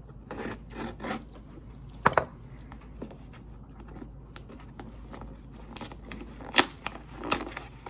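A package rustling, crinkling and scraping in irregular spurts as someone struggles to get it open, with sharper snaps about two seconds in and again past six seconds.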